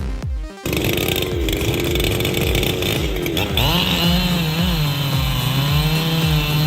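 Chainsaw engine running steadily, starting just before a second in, its pitch wavering a little, over background music with a regular low thumping beat.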